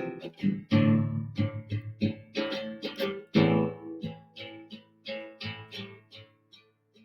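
Strummed guitar playing the closing chords of a song's outro, the strokes growing quieter and sparser until the music dies away near the end.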